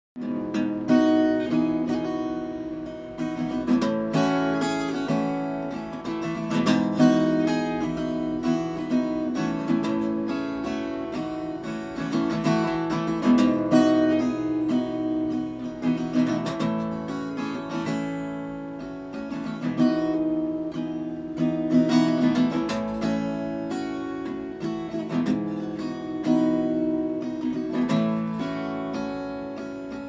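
Solo acoustic guitar playing an instrumental intro, chords ringing out with a fresh accent every few seconds.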